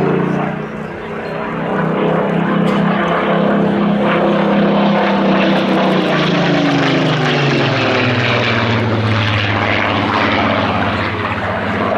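Rolls-Royce Griffon V12 engine of a Supermarine Spitfire PR XIX running hard in a display pass. Its note drops in pitch as the aircraft goes by, about seven seconds in, then carries on at the lower pitch.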